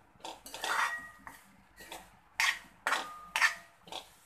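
Steel spoon scraping and clinking against a metal pan while stirring chopped okra: a run of short scrapes and knocks, about two a second, some with a faint metallic ring.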